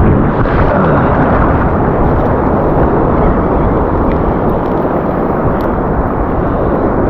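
Wind buffeting the microphone over surf washing around a wading angler: a loud, steady, low rush.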